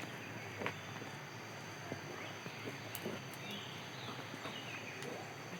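Forest ambience while walking: footsteps and scattered light clicks on the path, a steady high-pitched whine, and a few faint chirping calls about halfway through.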